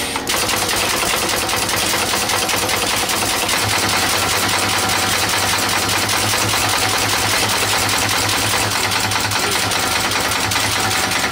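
Multi-point wire mesh spot welding machine running with its automatic cross wire feeder: a loud, continuous rapid clatter over a steady low hum.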